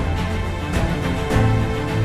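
Background music with a beat and held bass notes; the bass note changes a little over halfway through.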